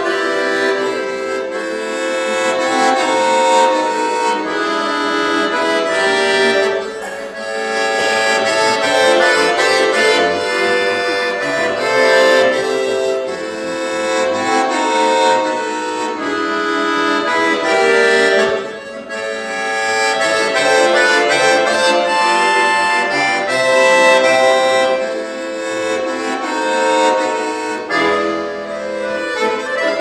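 Solo bayan (chromatic button accordion) playing a fast piece: quick runs of notes over sustained chords, with short breaks in the phrase about seven and nineteen seconds in.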